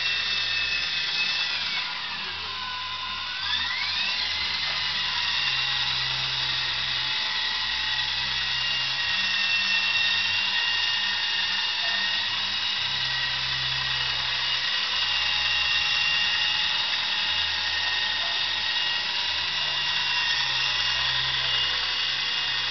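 Walkera HM 53Q model helicopter's electric motor and rotor running in flight: a steady high-pitched whine. Between about two and four seconds in, the pitch and loudness dip and then climb back.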